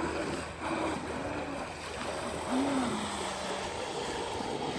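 Pro Boat Jetstream RC jet boat's motor whining up and down in pitch with short throttle blips, then holding steady, over a constant hiss of rushing water.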